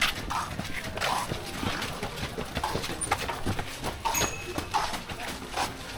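Footsteps of a person walking at a steady pace, one step a little more than every half second.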